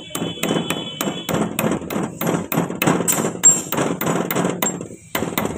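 Hammer tapping a steel locking pin into the planetary (star) gear carrier of a Mahindra Yuvo 475 DI tractor's final drive: quick, even metallic strikes, about four a second, pausing shortly before the end for a couple of last taps.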